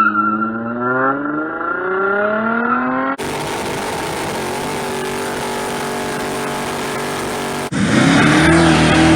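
Car engine sound in three abruptly cut segments. First an engine revving up, its pitch rising steadily for about three seconds. Then a steady run with a constant engine tone under rushing noise, then a louder engine note at a near-steady pitch for the last second and a half.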